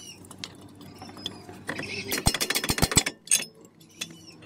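Rapid mechanical clatter: a burst of about a dozen sharp strikes in just over a second, a little before halfway through, with scattered clicks and knocks before and one more strike after.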